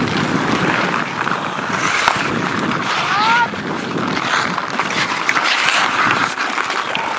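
Hockey play on outdoor ice: skates scraping, sticks clacking against the ice and puck, and voices calling from players and onlookers, with one short rising shout about three seconds in.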